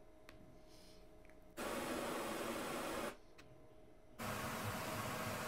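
Two bursts of level-calibration test noise from Dirac Live's volume calibration, each about a second and a half long, played through one speaker channel after another.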